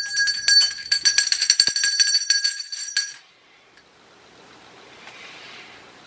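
Small handheld metal bell shaken rapidly, its clapper striking many times a second with a bright, high, sustained ring. It stops abruptly about three seconds in, leaving only a faint steady hiss.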